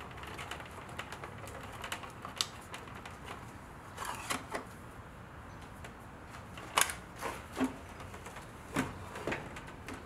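Hard plastic parts of a Range Rover Classic center console clicking and clacking as a small tray is worked in and out of its slot and the console is handled. The sound is a scatter of separate sharp knocks, the loudest about seven seconds in.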